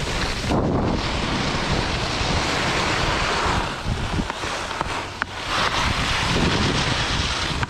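Skis hissing and scraping over hard-packed snow while wind buffets the microphone, the noise rising and falling with the turns.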